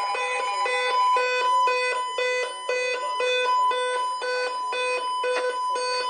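Electronic alarm beeping in a fast repeating pattern, about three beeps a second, over a steady tone.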